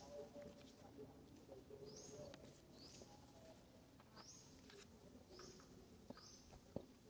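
Faint outdoor ambience: short high-pitched chirps repeating about once a second over soft, lower cooing tones, with one sharp tick near the end.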